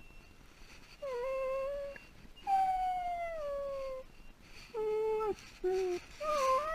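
Boxer puppy whining and howling in about five drawn-out, high-pitched cries, the longest gliding downward in pitch: distress at being left alone, a sign of separation anxiety.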